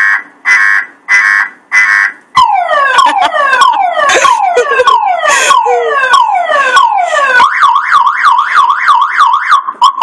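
Car alarm siren cycling through its tones: evenly spaced beeps, then about two seconds in a run of repeated falling sweeps, then near the end a fast up-and-down warble.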